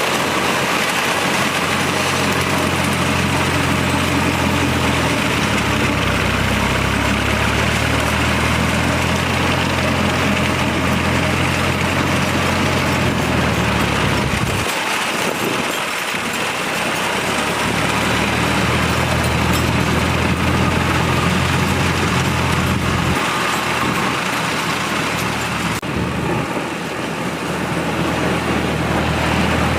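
Engine of farm harvesting machinery running steadily under a dense mechanical noise. The engine note drops out and changes abruptly several times.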